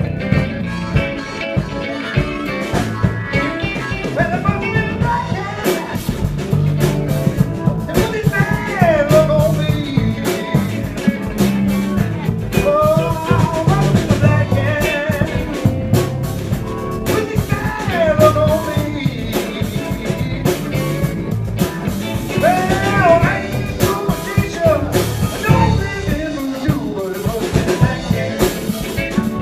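Live blues-rock band playing, with electric guitar, bass guitar and drum kit.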